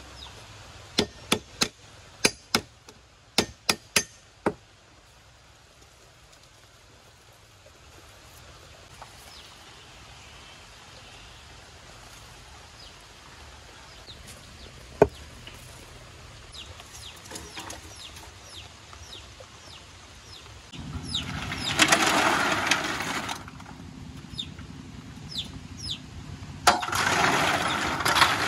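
A cleaver chopping lemongrass on a wooden chopping block, about nine sharp chops in the first five seconds. Near the end come two loud stretches of hissing and clatter as snails are stirred in a hot wok with a ladle.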